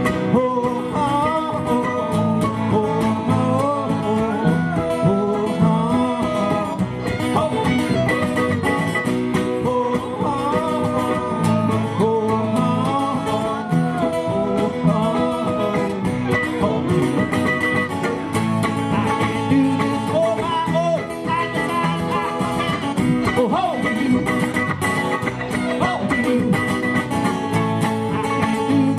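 Live country band playing an instrumental break, with a guitar-led melody that bends in pitch over a steady strummed and bass accompaniment.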